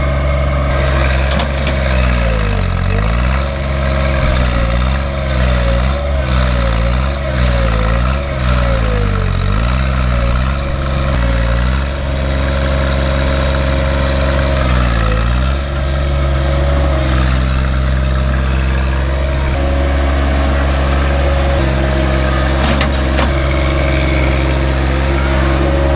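John Deere 1025R compact tractor's three-cylinder diesel engine running under work. Its pitch dips and recovers again and again through the first half, then holds steadier.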